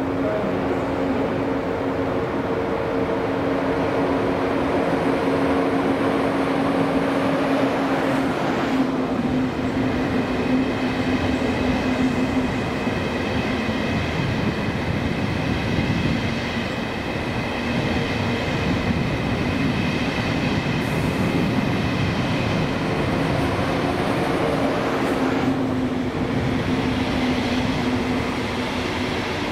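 A train running along the track, a loud steady noise with low hum tones throughout. A high, even whine comes in about nine seconds in and drops away again about four seconds before the end.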